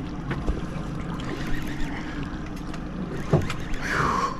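A fishing boat's engine running with a steady low hum under wind and sea noise, with light scattered ticks and a sharper knock about three seconds in.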